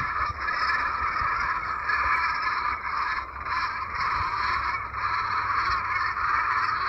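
Dense, continuous clamour of a large flock of geese on a lake, many calls merged into one steady noise, with a low rumble underneath.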